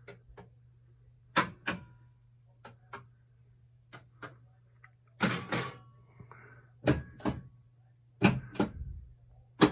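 Gottlieb System 80B pinball machine in solenoid test, firing its coils one after another: a sharp double clack about every second and a half.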